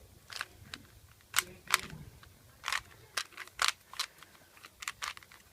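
A Rubik's cube's plastic layers being turned by hand: a dozen or so sharp, irregular clicks and clacks.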